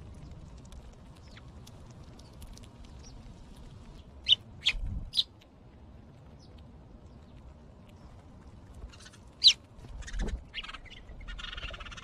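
House sparrows chirping at a birdbath: three sharp chirps about four seconds in and one loud chirp about halfway through, over faint splashing. A short thump and a rustle of water and wings follow just after, with another short rustling burst near the end.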